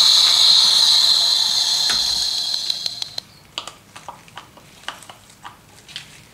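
A loud steady hiss that fades out about three seconds in. It is followed by faint irregular small clicks and crackles as a filled natural gut sausage casing is handled and pricked with a needle.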